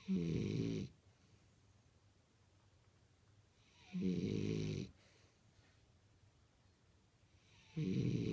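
French bulldog snoring in its sleep: three snores about four seconds apart, each lasting under a second.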